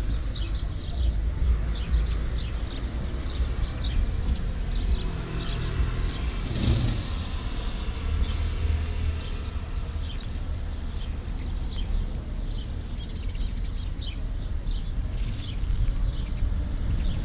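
Outdoor ambience: a steady low rumble with small birds chirping now and then, and a brief rush of noise about six and a half seconds in.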